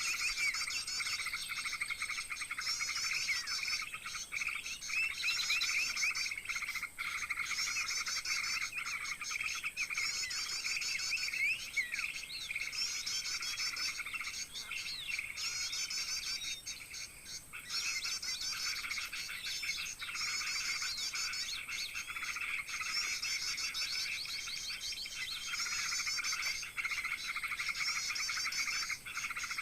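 Dense, overlapping small-bird calls, rapid chirps and trills repeating without pause, with a brief lull about two-thirds of the way through.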